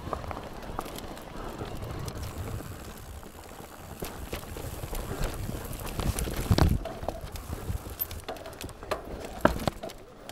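Mountain bike riding over a rough trail: low wind and tyre noise with scattered knocks and rattles, the loudest a heavy thump about six and a half seconds in and a sharp knock near nine and a half.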